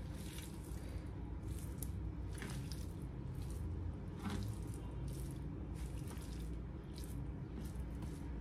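Raw chicken breast strips handled by hand, scooped off a wooden cutting board and dropped into a bowl: a string of soft, wet squishes and light slaps, over a low steady hum.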